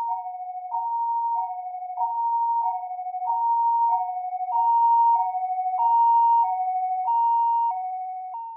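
Two-tone hi-lo emergency vehicle siren, alternating steadily between a high and a low note, each held about half a second. It grows louder towards the middle and fades near the end.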